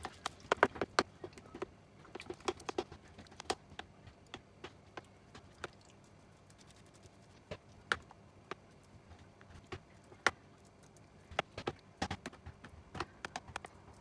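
Metal spoon clicking and scraping against a clear plastic container while stirring raw chicken pieces in a wet marinade with egg: irregular sharp taps, bunched near the start and again near the end.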